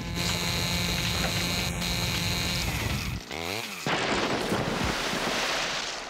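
A cartoon chainsaw cutting through ice: a steady motor drone for about three seconds. Then comes a quick swooping sound effect, gliding up and down, followed by a loud rushing noise to the end.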